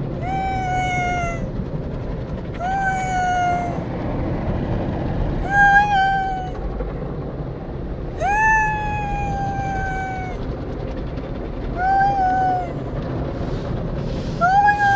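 Automatic car wash heard from inside the car: a steady rush of water spray and machinery, with six drawn-out high-pitched squeals over it, each a second or two long, rising quickly and then sliding slowly down.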